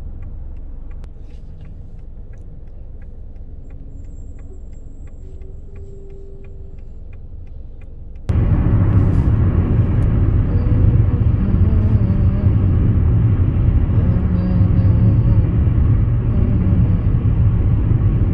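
Inside a car's cabin: a low idle hum with a turn signal ticking about three times a second. About eight seconds in, loud steady road and engine rumble from the car at highway speed takes over abruptly.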